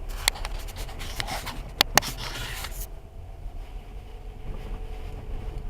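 Steady low rumble of a car driving, heard from inside the cabin on a dashcam's microphone, with a few sharp clicks and a scraping, rubbing noise during the first three seconds.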